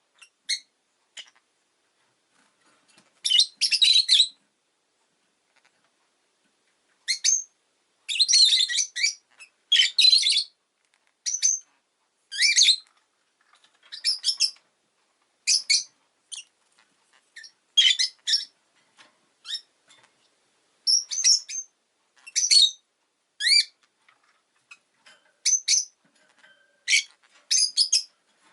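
Rosy-faced lovebird giving short, sharp, high-pitched chirps, singly and in quick clusters about every second or two, with a pause of a couple of seconds about five seconds in.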